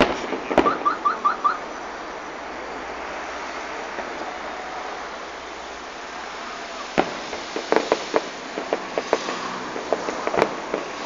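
Fireworks salute going off: a few bangs at the start with a quick run of five short whistles about a second in, then a steady hiss, then a fast string of bangs and pops from about seven seconds in.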